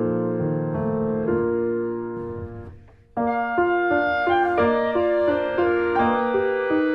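Background piano music. The notes die away about three seconds in, and a new phrase starts straight after.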